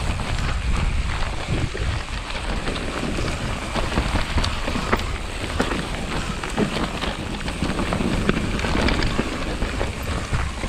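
Mountain bike riding down a slick, muddy forest trail: a steady low rumble of tyres and wind on the microphone, with many sharp clicks and knocks from the bike rattling over bumps and roots.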